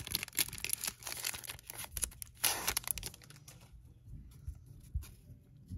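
Plastic wrapper of a Panini Donruss basketball card pack being torn open and crinkled by hand, with a loud rip about two and a half seconds in. After that the noise thins to a few faint clicks.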